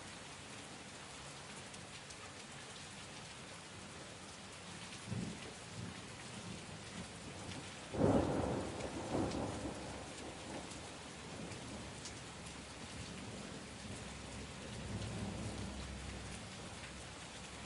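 Steady rain falling, with thunder: a short rumble about five seconds in, a louder clap about halfway through that rolls away over a few seconds, and a softer low rumble near the end.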